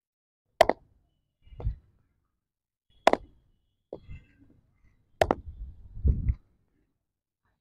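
Cricket bat meeting thrown full tosses in front-foot defensive blocks: three sharp wooden knocks about two and a half seconds apart, each followed by a softer thud.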